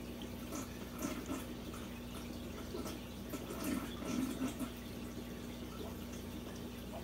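Aquarium water trickling and dripping, with scattered small splashes and a steady low hum underneath.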